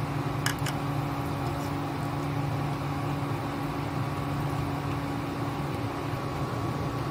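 Steady hum of an induction cooktop's cooling fan and coil running under a pan of simmering curry, with two short clicks about half a second in.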